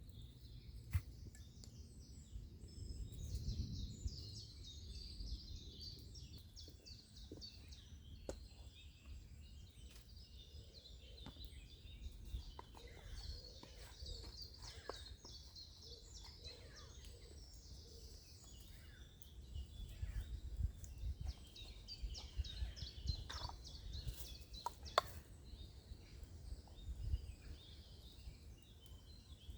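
Small birds singing and calling in the woods, with scattered sharp clicks and knocks and a low rumble that swells a few times.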